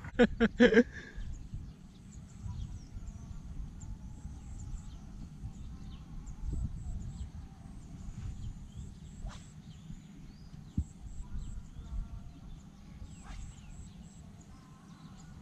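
Outdoor field ambience: a low rumble of wind on the microphone with faint bird chirps scattered through. About half a second in, a short loud run of four or five pitched calls.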